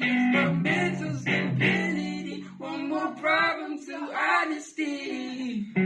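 A voice singing in short phrases over electric guitar chords, a live duet rehearsal with one guitar as the accompaniment.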